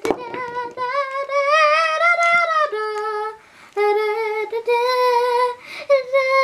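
A child's high voice singing a wordless tune in several long held notes, the pitch gently wavering, with short breaks between phrases.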